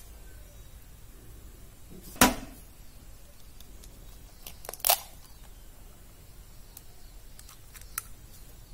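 A hen's egg being cracked open by hand: two sharp knocks a little under three seconds apart, then a few faint small clicks of shell near the end.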